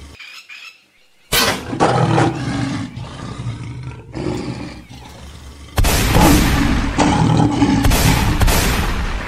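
Lion growling and roaring in two loud bouts, the first starting about a second and a half in and the second about six seconds in, with a quieter stretch between them.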